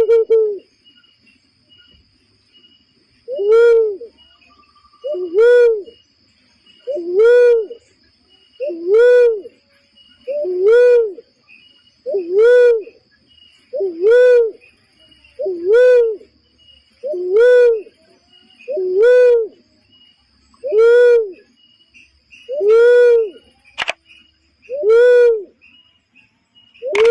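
Barred cuckoo-dove calling: a single low coo that rises and falls in pitch, repeated at an even pace about every two seconds, some fourteen times. It is played as a bird-trapping lure call.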